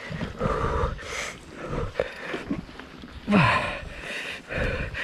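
A mountain-bike racer panting hard close to the microphone, about one breath a second, with a louder voiced, falling exhale about three seconds in: out-of-breath after a flat-out race stage.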